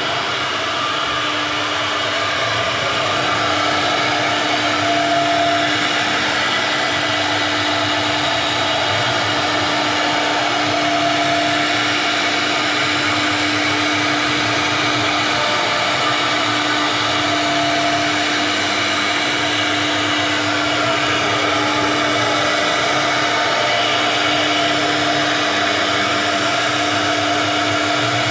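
CNC router spindle running steadily while carving wood, a constant whine over an even mechanical noise.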